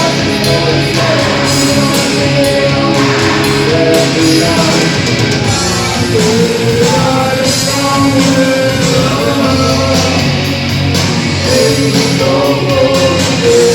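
Live rock band music played loud, with a singing voice carrying a wavering melody over the band.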